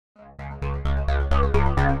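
Electronic music fading in from silence and growing louder, with a steady pulse of about four notes a second over a held bass.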